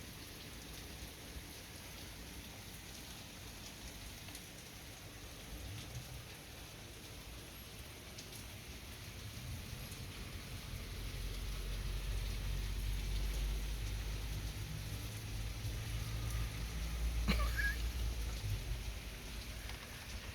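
Steady rain falling outside a window. About halfway through, a low vehicle rumble builds and then fades near the end: the mail carrier's vehicle passing in the rain.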